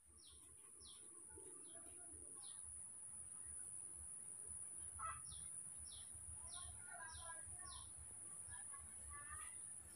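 Faint birdsong: short, high, falling notes repeated at irregular intervals, mixed with other scattered chirps, over a steady high-pitched whine.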